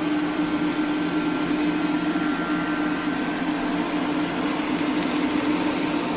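Portable induction cooktop running under a pan of chicken breasts: a steady electric hum with the even whirr and hiss of its cooling fan.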